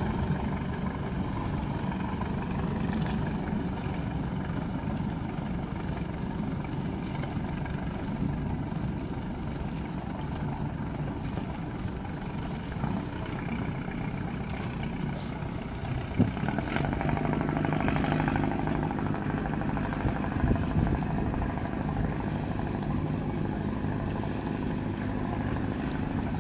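Boat engine running steadily as the boat motors out of the harbour. About two-thirds of the way through, the engine note shifts and grows a little louder.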